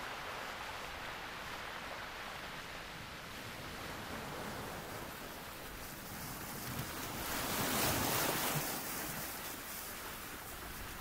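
Sea surf washing onto a beach: a continuous hiss of moving water, with one wave breaking louder about eight seconds in.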